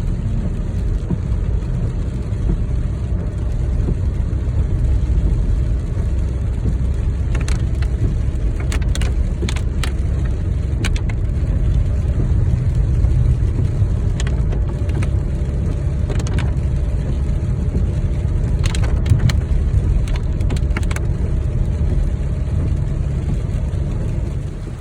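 Car driving, with a steady low rumble of road and engine noise. A few short, sharp clicks are scattered through the middle.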